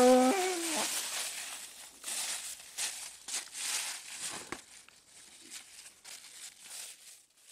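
Footsteps crunching and rustling through dry fallen leaves, irregular and growing fainter as the walker moves away. In the first second a person's drawn-out vocal cry comes to an end.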